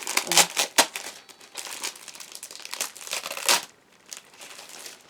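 Packaging crinkling and rustling as it is handled, a run of sharp crackles that dies down about three and a half seconds in.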